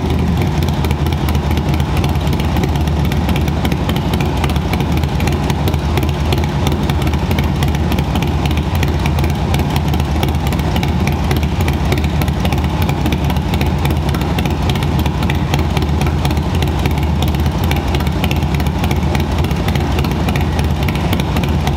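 Harley-Davidson Screaming Eagle 131 stage 4 V-twin idling steadily, with a lumpy cammed idle that gives a thump and a gallop.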